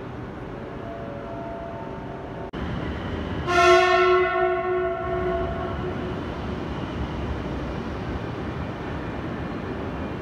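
A CRH high-speed train's horn sounds one blast of about two seconds, starting about three and a half seconds in, over the steady hum of the trains and platform.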